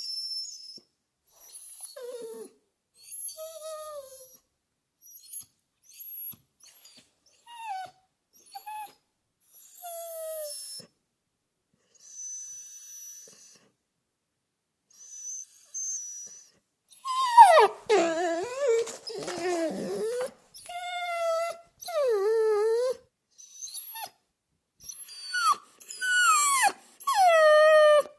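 A dog whimpering and whining: a series of short, high calls that mostly slide down in pitch, separated by pauses. Past the halfway point the whimpers grow louder and longer.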